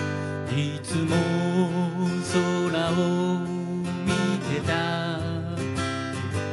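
An acoustic guitar strummed in a steady accompaniment while a man sings along into the microphone.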